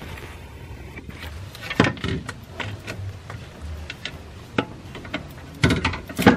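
Irregular clicks and knocks of metal hand tools against engine parts during alternator removal, with a louder cluster of knocks near the end.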